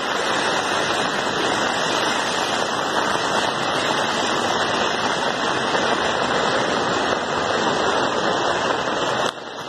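Muddy floodwater rushing fast down a swollen river channel: a steady, loud rush of water that drops in level shortly before the end.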